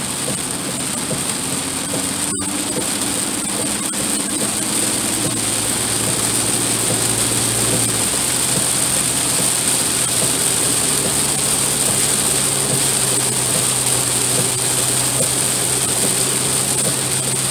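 Truck engine running steadily, heard inside the cab while driving in heavy rain; the engine note shifts slightly higher about halfway through. Rain and wet road spray make a steady hiss under it.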